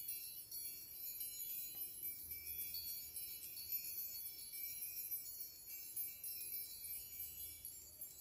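Continuous high tinkling of chimes, a dense shimmer of many overlapping bell-like tones with no clear beat.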